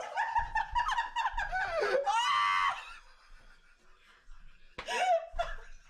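A person laughing in a long, high-pitched squeal for about three seconds. It goes quiet, then a short burst of laughter comes near the end.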